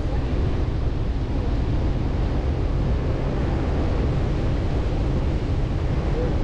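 Steady low rumble and rush of a Chevrolet Colorado ZR2 Bison pickup driving on soft beach sand, with wind noise on the microphone.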